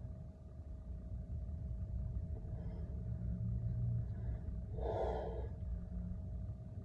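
A man's short, forceful exhale of effort about five seconds in, as he presses a dumbbell overhead, over a steady low rumble.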